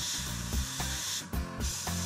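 Gravity-feed airbrush spraying paint with a steady high hiss that stops briefly about a second and a quarter in, as the trigger is released. Background music with a steady beat plays over it.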